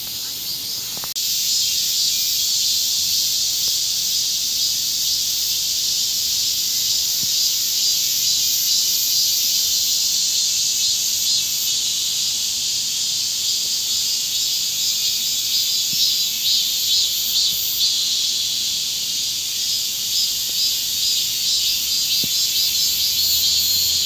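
A loud chorus of cicadas buzzing, a steady high-pitched drone with a fine pulsing texture. It jumps louder about a second in.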